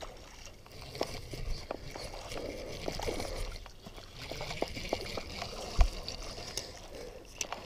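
A caught bass being let go into shallow creek water, water sloshing and splashing, with scattered handling clicks. A sharp thump about six seconds in is the loudest sound.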